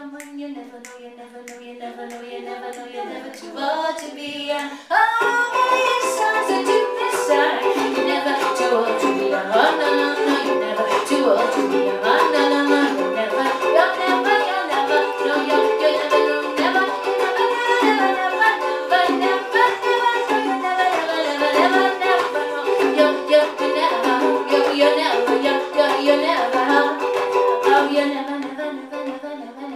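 Live acoustic jazz: a ukulele strums quietly, then about five seconds in a harmonica comes in loud over it with held chords and bending notes. The harmonica drops away near the end.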